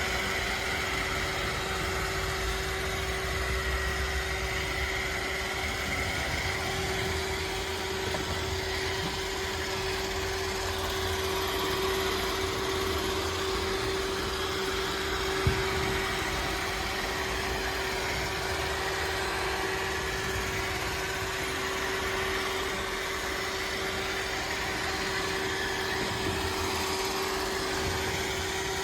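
iRobot Roomba 640 robot vacuum running, a steady motor hum with a constant whine. There is a single short knock about fifteen seconds in.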